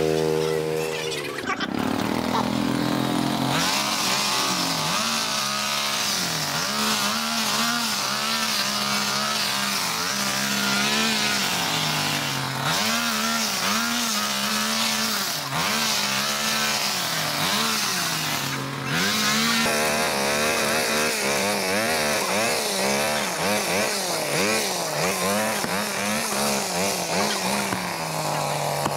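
Small petrol engine of a handheld power tool, revving up and dropping back over and over as it works.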